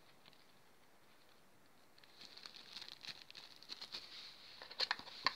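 Near silence for about two seconds, then faint rustling with fine ticks from a small plastic bag of glitter being handled, with a few sharper clicks near the end.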